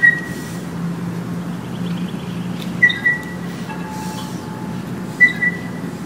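Birds and chimes outdoors: short high notes, three of them about two and a half seconds apart, over a steady low rumble.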